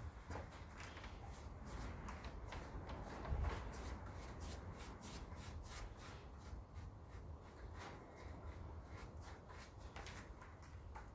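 Hand-carving tool working a wooden board, many quick short scraping and cutting strokes, several a second.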